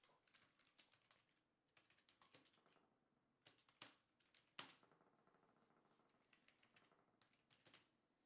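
Faint typing on a computer keyboard: irregular runs of key clicks with short pauses, a couple of keystrokes louder than the rest around the middle.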